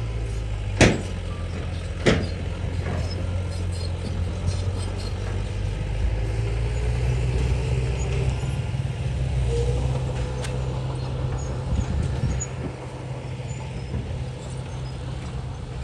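Heavy earthmoving diesel engine running steadily, with two sharp bangs in the first couple of seconds and a lighter knock about ten seconds in.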